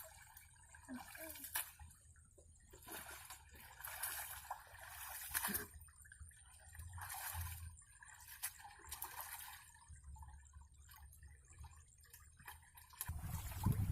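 Faint, irregular sloshing and trickling of water, with scattered small splashes. A louder low rumble comes in near the end.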